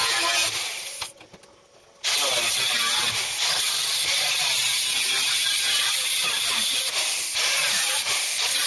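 Steady, loud hiss of a power cutting tool slicing through the rusted sheet-steel floor pan, cutting out for about a second near the start and then starting again.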